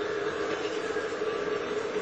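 Model trains running on a layout: a steady hum from the locomotive motors with the rolling noise of wheels on track.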